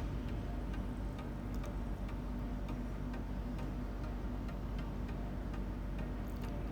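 Faint, steady clock-like ticking over a low, even hum.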